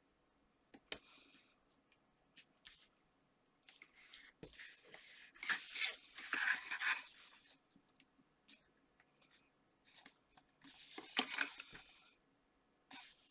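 Paper and card stock being handled: rustling and rubbing as sheets are slid and pressed down, with small taps and clicks, in two longer stretches about five and eleven seconds in.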